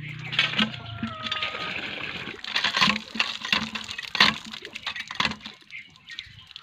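Cast-iron village hand pump being worked: irregular metallic clanks of the handle and plunger, with water splashing from the spout.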